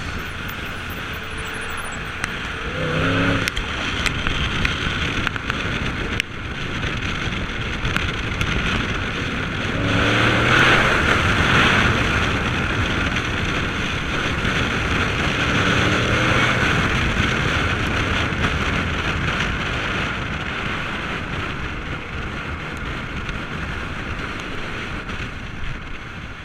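A car engine running over a steady rushing noise, rising in pitch three times as it revs or accelerates.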